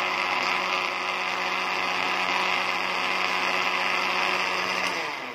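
Electric blender motor running steadily as it purées a thin garlic, vinegar, lemon and chili sauce, a steady whirring hum; near the end it is switched off and starts to wind down.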